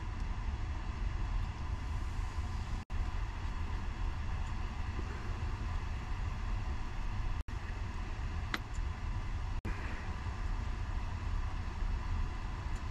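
Steady low rumble with a hiss over it, broken by four brief drops to silence, with one short faint click partway through.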